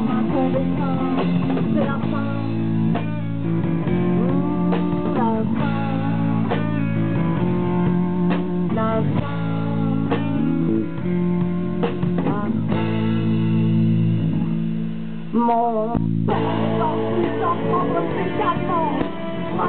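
Live rock band playing an instrumental break: an electric lead guitar plays bent notes over rhythm guitar, bass and drums. The band thins out for a moment about fifteen seconds in, then comes back in full.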